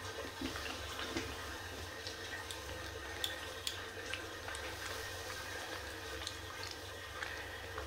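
Young kitten suckling milk from a small plastic feeding bottle: soft, faint wet clicks and smacks scattered through, over a low steady hum.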